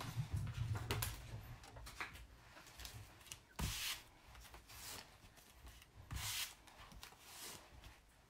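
Hands rubbing and pressing a sticky Chalk Couture adhesive transfer against a cloth to 'fuzz' it, taking off some of its tack: dull bumps on the table at first, then several short scratchy rubbing swishes a second or so apart.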